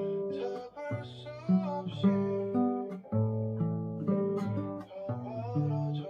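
Nylon-string classical guitar played fingerstyle: a slow melody picked over changing bass notes, each note left ringing.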